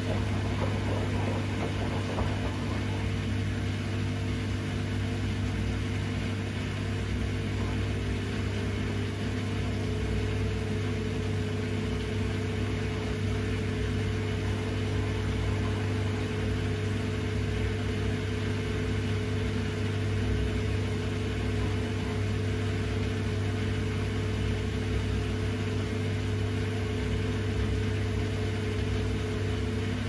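Bosch Series 6 i-dos front-loading washing machine running mid-wash: a steady motor hum as the drum turns the wet laundry at an even speed.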